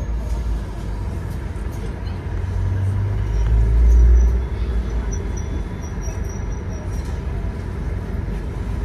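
Scania K230UB OmniLink bus's five-cylinder diesel idling while stationary, heard from inside the passenger saloon. A deeper engine rumble swells from about two and a half seconds in and peaks around four seconds, then drops back to idle. A string of faint, short high beeps sounds through the middle.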